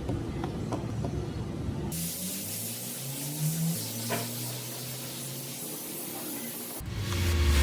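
A steady spraying hiss, with a few faint low tones in the middle.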